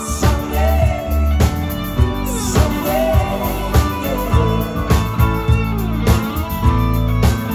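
Live rock band playing: electric guitar, bass and drums, with a male lead vocal.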